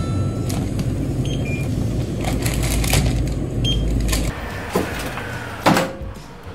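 Self-checkout kiosk beeping a few times with short electronic tones over a steady low hum. After about four seconds the hum drops away, and a couple of sharp knocks follow, the loudest near the end.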